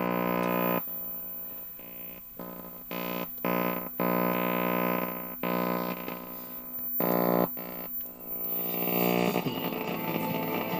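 Buzzing drone from the speaker of a 1958 RCA 17-inch portable black-and-white TV, switching on and off abruptly several times. It is strongest in the first second and again around four to five seconds in.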